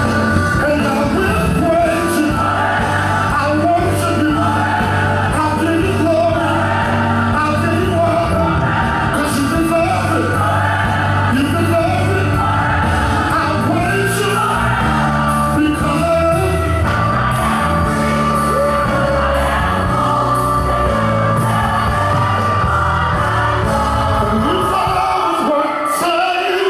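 Gospel song playing: sung vocals over a full band with a steady bass line, the bass dropping out near the end.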